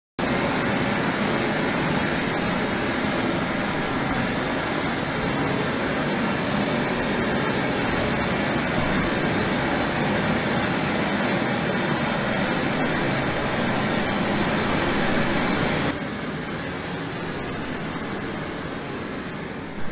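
Steady broadband test noise, an even hiss from a dodecahedron loudspeaker driven at around 100 dB for an airborne sound insulation test of a mobile acoustic partition. It starts abruptly and drops somewhat in level about 16 seconds in.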